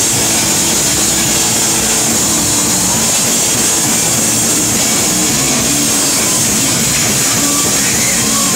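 Rock band playing live at full volume through a PA: heavily distorted electric guitars and drums merged into a dense, steady wall of noise with no clear melody.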